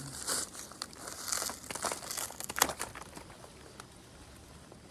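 Dry harvested corn stalks, leaves and husks crunching and crinkling in a rapid run of crackles that dies down after about three seconds.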